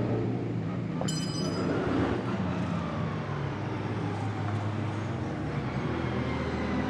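Ligier JS P4's 3.7-litre Ford Cyclone V6 running at low revs in the pit lane, a steady low engine note. About a second in there is one sharp metallic click with a short ringing tail.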